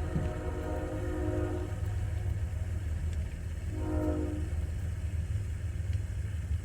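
Train horn blowing: a held blast that stops about a second and a half in, a short blast around four seconds in, and another starting near the end, over a steady low rumble.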